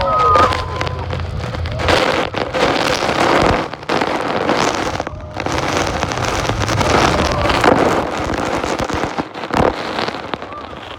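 Heavy spray and falling water from Iguazu Falls pelting the boat and the microphone, over the roar of the falls, as a tour boat runs into the plunge pool. The noise comes in surges with brief dips, crackling like a downpour.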